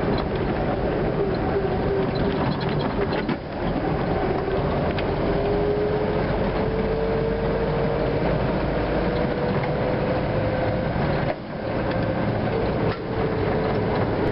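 Old military truck driving on a dirt road, heard from on board: loud, steady drivetrain running with a clattering rattle and a gear whine that slowly rises in pitch. The noise dips briefly three times.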